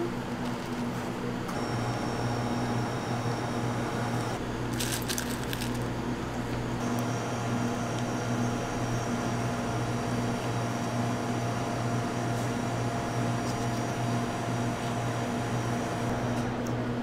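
Steady low electrical hum of running equipment, with a short patch of light crackling about five seconds in.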